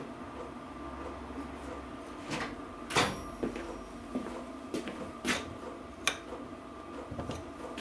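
Hand tools being handled, a toolbox shut and a tool fitted to a bearing puller on a differential carrier: a few separate knocks and metallic clinks, the loudest about three seconds in, over a faint steady hum.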